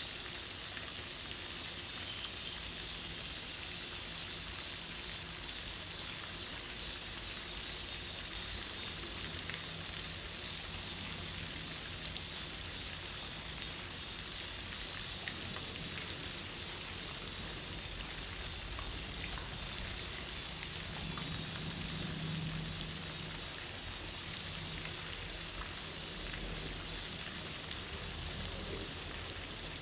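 A steady, high-pitched chorus of summer insects such as cicadas, a little louder in the first few seconds, over a faint low hum.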